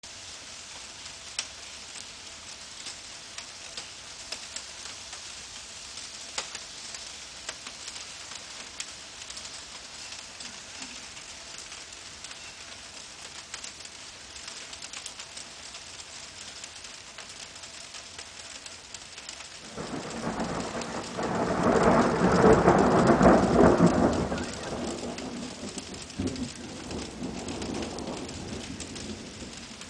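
Steady rain with scattered drips, then a rumble of thunder that builds about two-thirds of the way through, is loudest a few seconds later, and fades away.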